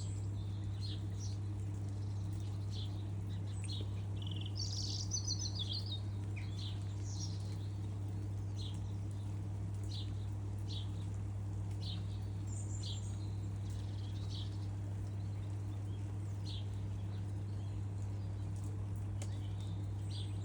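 Birds chirping, with short high calls scattered throughout and a brief fluttering trill about five seconds in, over a steady low hum.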